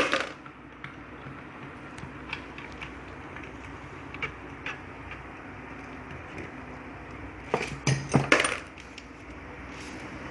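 Hand tools and small metal parts clinking and clattering during car repair work. There is a sharp clank at the start, light scattered clicks, and a cluster of louder clanks about eight seconds in.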